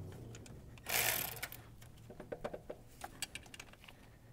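Hand ratchet clicking faintly in short, irregular runs as a 13 mm alternator mounting bolt is snugged down, after a brief scuff about a second in.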